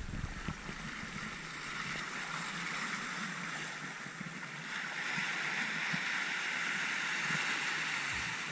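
Shallow surf washing in over sand between boulders: a steady rushing hiss of water that swells louder about halfway through.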